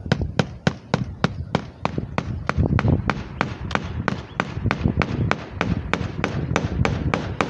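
Steady, rapid hammer strikes, about three a second, over a low rumble.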